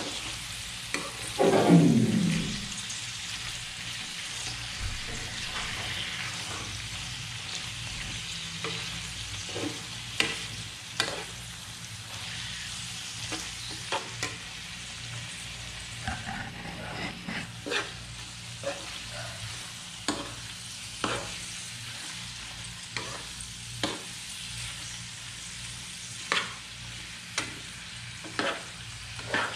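Chicken pieces with onion and carrot sizzling in a frying pan while a metal spoon stirs them, clinking and scraping against the pan many times. About two seconds in, a loud sound glides down in pitch.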